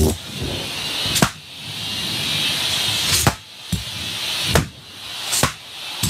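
Shop vac sucking at latex balloons, a steady rush of air broken by four sharp balloon pops about one to two seconds apart, the suction noise dropping after each pop and then building again.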